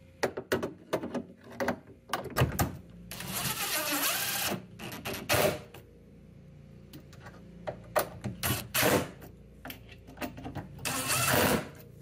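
Cordless DeWalt drill driving screws into a steel refrigerator hinge bracket in short whirring runs, about three seconds in and again near the end, between sharp metal clicks and clinks as the bracket and screws are handled.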